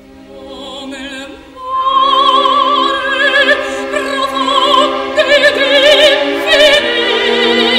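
Operatic singing with a wide vibrato over orchestral accompaniment, quiet at first and swelling to full voice about a second and a half in.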